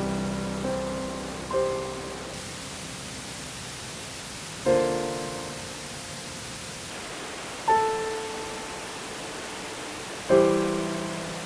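Slow background piano music: sparse chords struck every few seconds and left to ring out and fade, over a steady rushing hiss.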